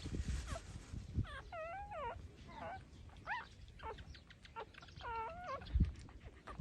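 Six-day-old puppies whimpering and squeaking while nursing from their mother: a string of short, high, wavering cries. A dull thump near the end.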